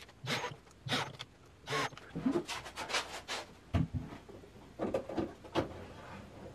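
Scattered knocks and clatter of a wooden dresser carcass being handled, with a heavier low thump a little before four seconds in.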